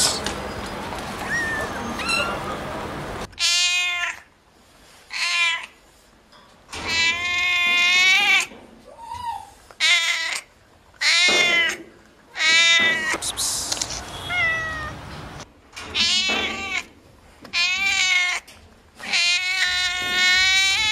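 Faint kitten mews over background noise, then, from about three seconds in, a long-haired colourpoint cat meowing loudly and repeatedly: about ten drawn-out yowls, each up to about a second and a half long, with short pauses between them.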